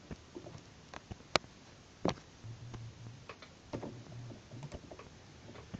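A few sharp clicks scattered through a quiet room, the loudest about a second and a half in and another around two seconds in, with faint low humming in between. They are the kind of clicks or taps made in pressing through an on-screen game.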